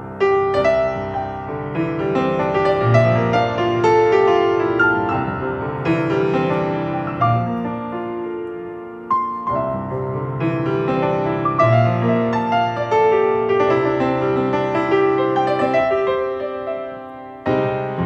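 Steinway & Sons grand piano played solo: a continuous flow of melody notes over held low bass notes, with a louder chord opening a new phrase about nine seconds in.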